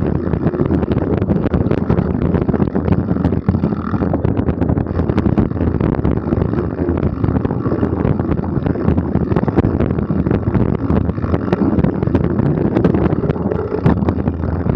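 Mountain bike riding fast over a rough dirt trail: wind buffeting the microphone, with the bike constantly rattling and knocking over the bumps.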